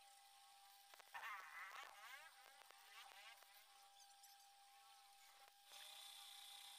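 Near silence: a faint steady high hum, with faint warbling sounds from about a second in to about three and a half seconds in, and a slightly louder hiss near the end.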